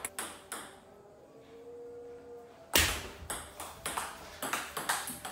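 Table tennis ball clicking back and forth between paddles and table in a rally. It opens with a loud hit a little under three seconds in and goes on as quick, sharp clicks several times a second. A few ball bounces click in the first half second.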